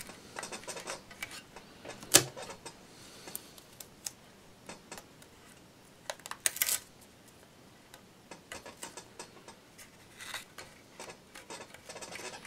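Masking tape being handled, peeled and pressed down with the fingers to hold a cardboard backing in place: faint scattered crinkles and clicks, with a sharp tap about two seconds in and a short scratchy noise a little after six seconds.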